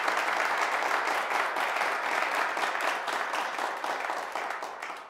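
Audience applauding: a steady spread of many hands clapping that fades away near the end.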